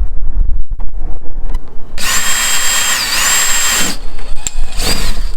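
Power drill running for about two seconds, its whine dipping in pitch briefly as it bites under load and then recovering, followed by a short second burst near the end.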